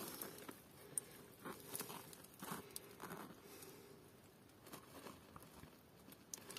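Near silence, with a scattering of faint short taps and scuffs of handling.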